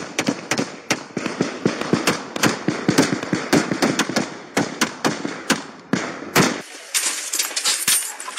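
A sustained, irregular volley of gunshots from several guns firing at once, about four to five sharp cracks a second. About six and a half seconds in, the bass drops out of the sound and the cracks go on thinner.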